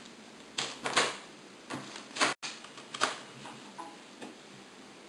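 Handling noise from a small plastic USB microscope and its cable: a scatter of short sharp clicks and light rustles, loudest in the first three seconds, thinning out toward the end.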